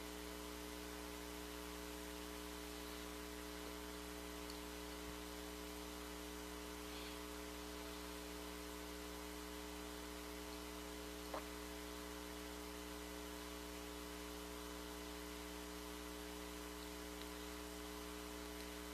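Steady electrical hum with a faint hiss, the background noise of the recording, with a single faint click about eleven seconds in.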